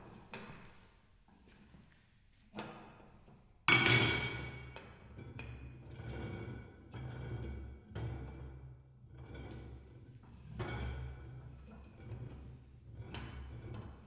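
Prepared double bass fitted with a small cymbal and other objects, played as a percussion and string instrument. Irregular struck and scraped strokes come every second or two, the loudest a sharp bright hit about four seconds in. After it, a low ringing hum from the bass carries under the later, softer strokes.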